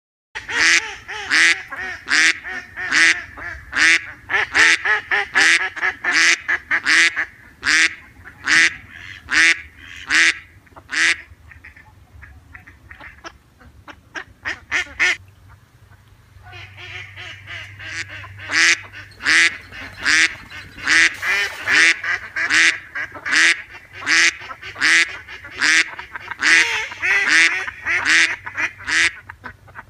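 Ducks quacking over and over, about two loud quacks a second, with a stretch of softer, quicker calls around the middle.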